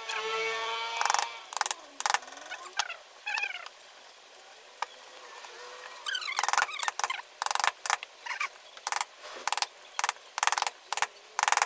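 Carving gouge pushed by hand through wood in a series of short slicing cuts, a few at first, then about two a second in the second half. A few high chirps sound in the first few seconds.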